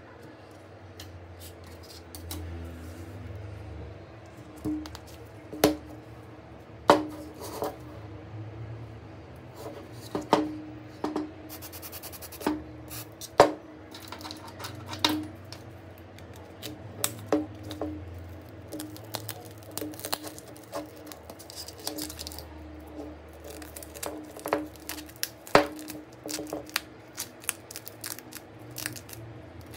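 Small repair tools clicking and tapping against a smartphone, with irregular sharp clicks, some much louder than others, over a steady low hum.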